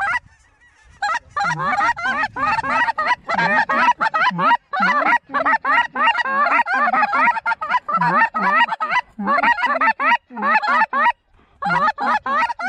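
A goose call blown in fast runs of short honks and clucks, each note breaking sharply up in pitch, several a second, after a quiet first second and with a brief pause near the end. The calling is rough, which the caller himself rates not so good.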